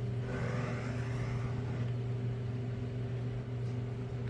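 LG Dios dishwasher running with a steady motor hum, with a brief rush of water noise in the first second or so.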